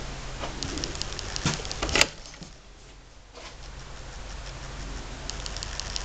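Small clicks and knocks of a closet door's lever latch and hinges as the door is opened, ending in one sharp, loud click about two seconds in. More light clicks follow near the end, over a low steady hum.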